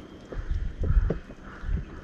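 Irregular dull knocks and thumps aboard a small inflatable fishing boat, over a faint hiss of water and wind.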